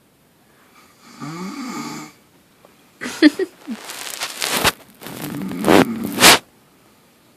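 A sleeping person snoring: a softer snoring breath about a second in, then two loud snores, starting about 3 and 5 seconds in, each about a second and a half long.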